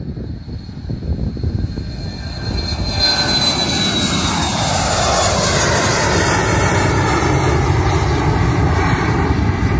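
Business jet's engines passing close by: a high whine slides down in pitch, then the roar grows louder about three seconds in and holds steady.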